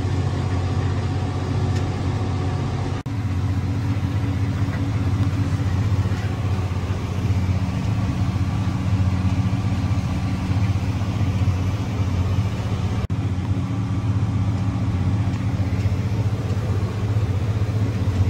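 John Deere tractor's engine running steadily under load, heard from inside the cab, as it pulls a chopper through tall sorghum. The sound breaks off for an instant twice, about 3 and 13 seconds in.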